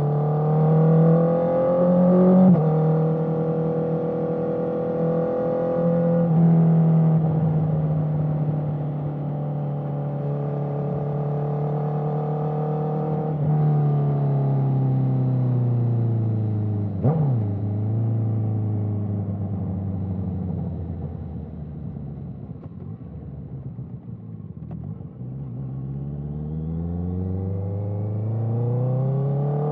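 Honda CBR650R's inline-four engine through an Akrapovic exhaust, under way: revs climb and step cleanly through two quick-shifter upshifts in the first few seconds, then hold steady. Past the middle there is a sharp rev blip, the revs fall away as it slows, and they build again near the end.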